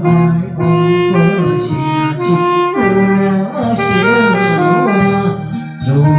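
Instrumental break of a Taiwanese love song, led by a saxophone playing the melody over a backing band.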